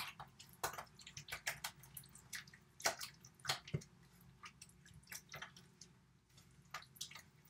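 A spatula stirring thick, wet pumpkin batter in a metal mixing bowl: soft, irregular wet clicks and squelches, several a second, as the wet ingredients are mixed together.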